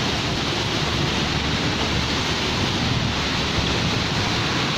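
Heavy rain falling in strong wind, a steady rushing hiss, with wind rumbling on the microphone.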